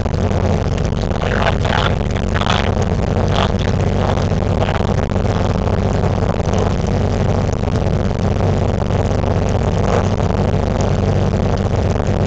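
Cessna 182's six-cylinder Continental O-470 engine and propeller running steadily, heard from inside the cabin as the plane rolls along the ground.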